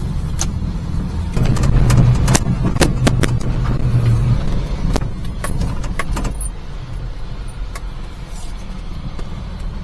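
Cab interior of a Daihatsu Hijet kei mini truck driving slowly over rough snowy ground: the small engine's low drone, pulling harder for about three seconds starting a second and a half in, with sharp clicks and rattles from the cab over the bumps.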